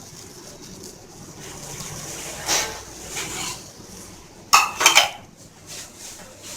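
Metal spoon scraping and clinking against a pot of masala milk reducing on a low flame, with a quick run of sharp, ringing clinks about four and a half seconds in.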